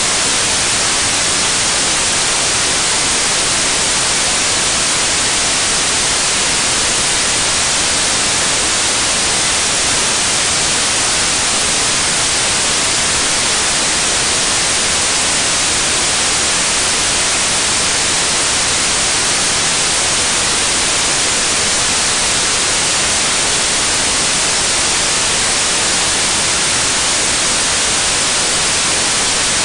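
Steady, loud hiss of static like white noise, even and unchanging, with no engine, tool or other sound standing out above it.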